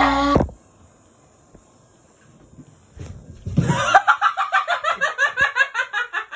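A dog's growl cuts off about half a second in. Near the middle a person bursts into rapid, rhythmic laughter, about four or five laughs a second, which runs until just before the end.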